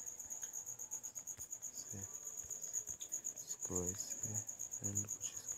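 A continuous high-pitched pulsing trill, insect-like, running steadily underneath. A man's low voice makes a few short, unclear sounds about two seconds in and again around four to five seconds in.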